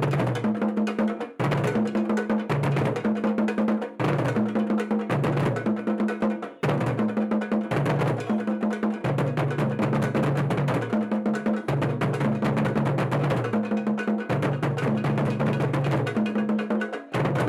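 Music with a steady drum beat and a repeating bass line.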